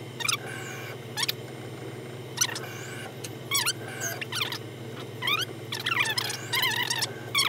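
Tormach CNC mill's X-axis drive whining in short chirps that rise and fall in pitch as the table is jogged in small steps, over a steady low machine hum.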